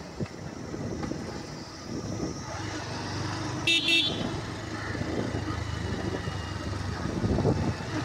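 Two quick toots of a vehicle horn a little before the middle, over the steady running of a motorcycle engine and road noise.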